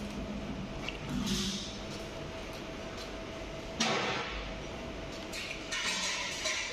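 A metal spoon clicking against a plate about four seconds in, then scraping in a small bowl of sauce near the end, over a faint steady hum.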